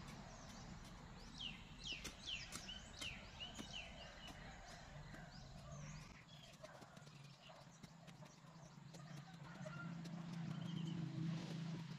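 Rural morning ambience: bird calls with quick falling chirps over the first few seconds, scattered light clicks, and a low steady hum that grows louder near the end.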